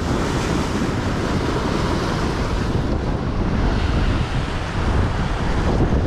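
Rough sea surf breaking and churning against shore rocks, a steady rush with wind buffeting the microphone.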